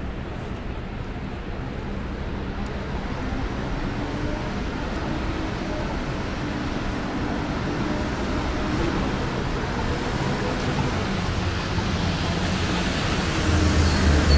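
City street traffic noise, steady and slowly growing louder, with a low vehicle engine rumble coming up near the end.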